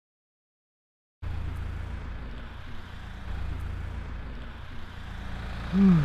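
Steady low rumble of outdoor background noise, as at a wet roadside, starting about a second in after silence. A short falling pitched sound near the end is the loudest moment.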